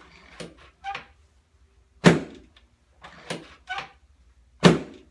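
Chiropractic low back adjustment on a treatment table: a run of small clicks and rattles, then a loud sharp thud, happening twice about two and a half seconds apart.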